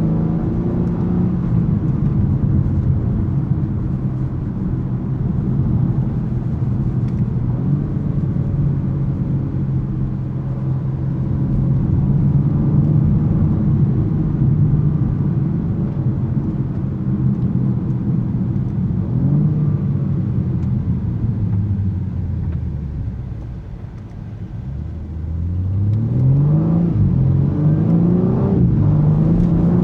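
BMW M3 Competition's S58 3.0-litre twin-turbo straight-six pulling steadily at cruise. About two-thirds of the way in it winds down and the sound drops briefly. It then accelerates hard, revving up through several quick upshifts.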